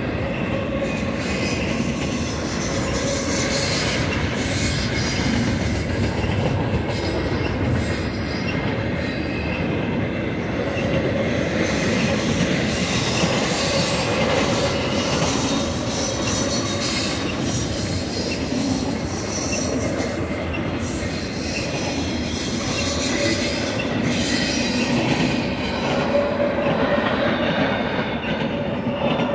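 BNSF double-stack intermodal freight cars rolling steadily past, their wheels running on the rails, with a thin wheel squeal that comes and goes.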